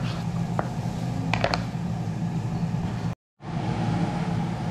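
Kitchen knife cutting pork ribs on a plastic cutting board, its blade knocking sharply against the board a few times in the first second and a half, over a steady low hum. The sound drops out completely for a moment about three seconds in, and then the hum goes on.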